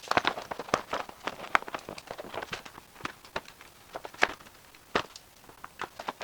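Irregular sharp clicks and light knocks of hand work on the compost tumbler parts, spaced unevenly, several a second at times, with a louder knock about four seconds in and another about a second later.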